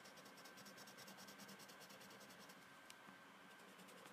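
Faint scratching of a marker tip on paper as a page is coloured in with rapid back-and-forth strokes. The strokes pause briefly near the middle with a single small tick, then start again.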